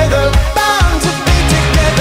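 Pop song with singing over a steady bass beat.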